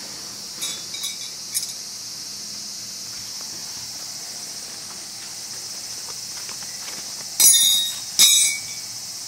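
Insects buzzing steadily and high in the background. Near the end come two short, loud metallic clinks, the second ringing briefly, as metal tent stakes are pulled up and handled.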